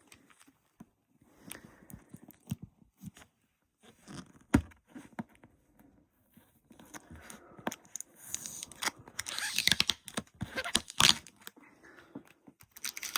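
Packing tape being torn and peeled off a cardboard box: scattered rips and rustles with the odd knock of cardboard, busiest from about eight to eleven seconds in.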